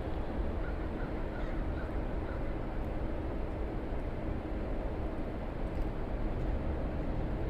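Steady low rumble of outdoor street background noise, with a few faint short chirps in the first two seconds.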